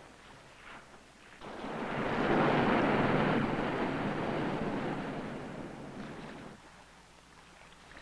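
A sea wave breaking against rocks: a rush of surf that swells up about a second and a half in, then slowly dies away.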